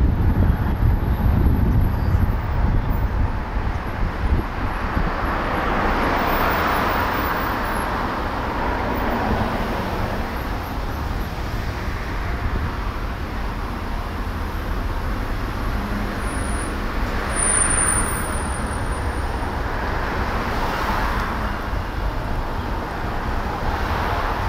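Car driving through city traffic: steady road noise with a strong low rumble, swelling a few times as it goes.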